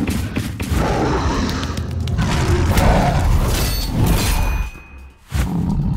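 Dubbed action sound effects of noisy crashing and scraping for a toy robot dinosaur burrowing through sand, with a brief drop-out about five seconds in.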